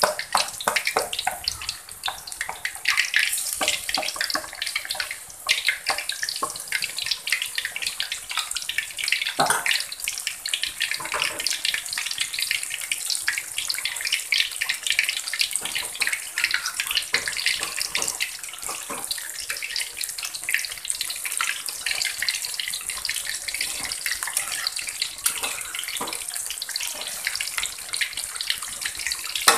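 Batter fritters with shrimp and vegetables deep-frying in hot oil: a steady crackling sizzle made of many fine pops.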